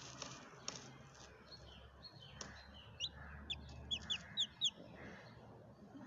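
Newly hatched chick peeping: a quick run of about a dozen short, high, rising peeps starting about three seconds in, loudest toward the end of the run. A couple of sharp clicks come at the start and just under a second in.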